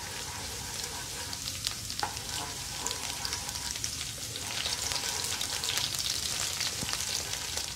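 Chopped garlic sizzling in hot oil in a non-stick karahi, stirred with a plastic spatula that gives a few light knocks against the pan. The garlic is being lightly fried, not taken to golden. The sizzle grows a little louder about halfway through.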